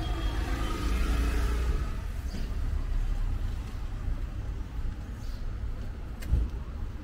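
Town street traffic: a motor vehicle's engine passes close by in the first two seconds over a steady low rumble, with a single sharp knock about six seconds in.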